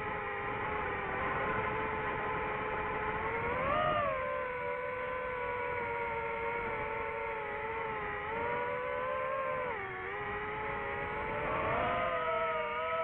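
DJI FPV drone's motors and propellers whining steadily in flight, the pitch rising and falling with the throttle, swelling up about four seconds in and again near the end.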